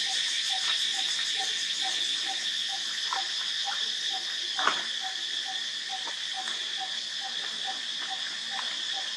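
Steady high-pitched drone of insects in the trees, with a low short pip repeated evenly about three times a second beneath it. One sharp click a little past the middle.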